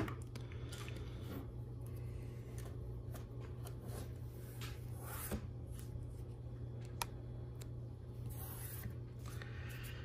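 Faint handling of LEGO Technic plastic parts on a table: light rubbing and scattered small clicks, the sharpest about seven seconds in, over a steady low hum.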